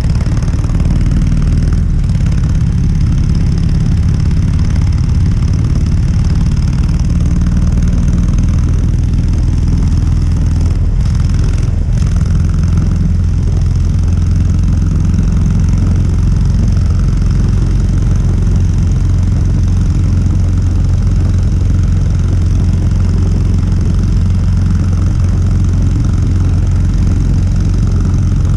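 Harley-Davidson Sportster 883's air-cooled V-twin idling steadily through its stock exhaust.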